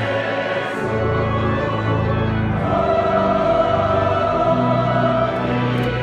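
Massed choir singing with a symphony orchestra: long held chords over low strings, the voices swelling louder about two and a half seconds in.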